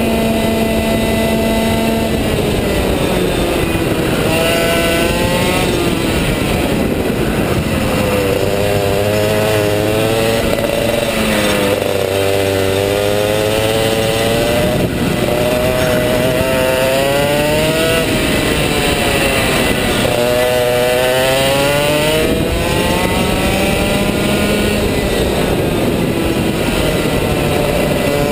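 Rotax Max 125 cc single-cylinder two-stroke kart engine at racing speed. It holds high revs at first, then its pitch drops off and climbs again several times as the kart brakes into corners and accelerates out of them.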